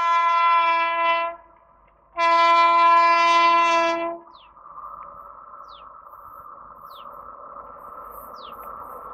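WAP-7 electric locomotive's horn sounding two long blasts, the first ending about a second in and the second lasting about two seconds. Then the steady running noise of the approaching train, growing slowly louder.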